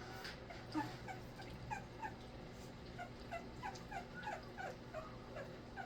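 Three-week-old pocket bully puppy whimpering and fussing: a steady run of short, high cries that each slide down in pitch, two or three a second.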